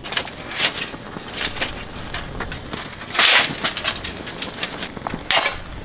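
Charcoal briquettes burning in a small folding steel fire stand, crackling and popping irregularly as sparks fly. There is a louder rush about three seconds in and another sharp burst near the end.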